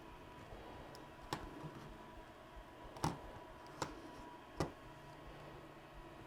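Four light, sharp clicks of small parts on a disassembled Laerdal SimPad Plus handheld as it is plugged back together after a power-button repair. The second click is the loudest, and the last two come close together.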